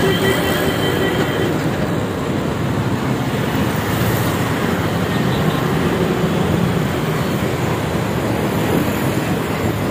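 Steady, loud roar of road traffic, with a bus passing close by.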